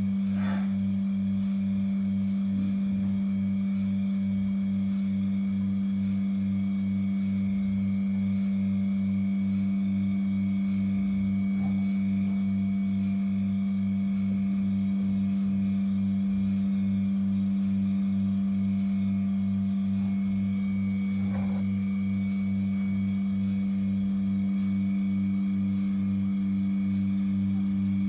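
Milking machine running on a cow: a steady mechanical hum from the vacuum system, with the pulsator's even, regular pulsing underneath as the teat cups milk.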